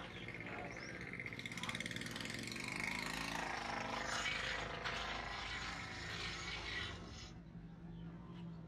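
Market-street ambience with a small engine rattling close by, building from about a second and a half in, loudest in the middle and dropping away about seven seconds in, over a steady low hum.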